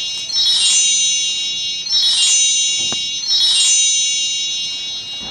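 Chimes struck in a shimmering run three times, about a second and a half apart, each ringing on and fading: a magic-spell sound for the waves of a magic paintbrush.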